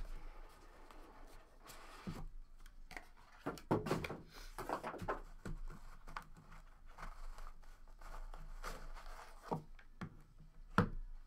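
Hands opening a cardboard trading-card box and lifting out a stack of clear hard-plastic card holders: soft rustles of the lid sliding, with scattered sharp clicks and knocks as the plastic cases tap each other and the table.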